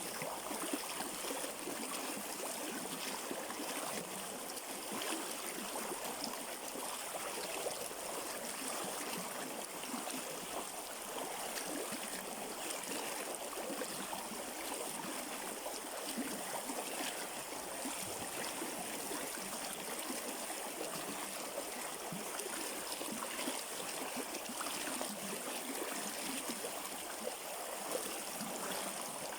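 A river flowing steadily over stones, a continuous rushing with trickling and gurgling.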